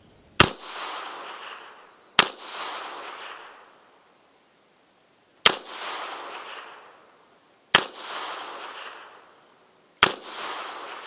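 Austrian M1898 Rast & Gasser 8mm revolver fired five times double action, the shots about two to three seconds apart. Each shot is followed by an echo that dies away over about a second and a half.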